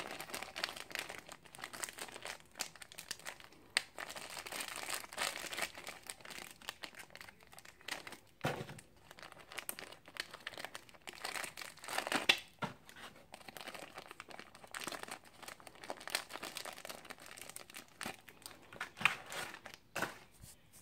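Packaging being crinkled and torn open by hand: irregular crackling with a few sharper clicks, the loudest about 8, 12 and 19 seconds in.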